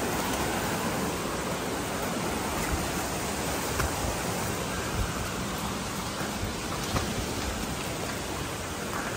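Steady rush of flowing creek water, with a few faint clicks.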